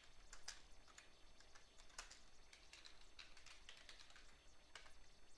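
Faint typing on a computer keyboard: a quick, irregular run of keystroke clicks.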